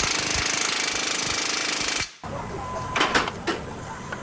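Pneumatic impact wrench hammering continuously on a bolt, then stopping abruptly about two seconds in. A few sharp knocks follow.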